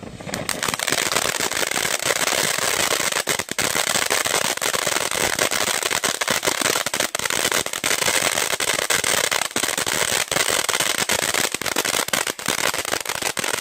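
Winda Snow Cone fountain firework spraying sparks: a steady, dense hiss full of rapid crackling, starting abruptly just after the start.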